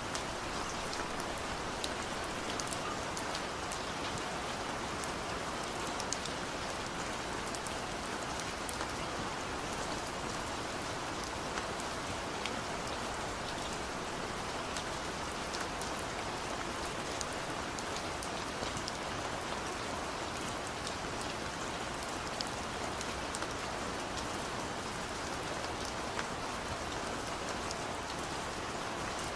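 Steady rain falling on a surface, an even hiss with many small sharp drop ticks scattered through it.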